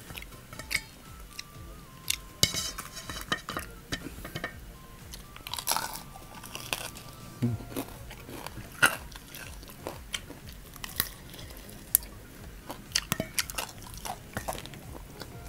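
Close-up chewing and crunching of crispy fried chicken, with scattered sharp crackles and the odd click of chopsticks on a steel plate.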